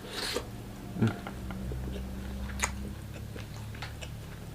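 A person biting into and chewing grilled chicken close to the microphone, with a string of small sharp mouth clicks and ticks.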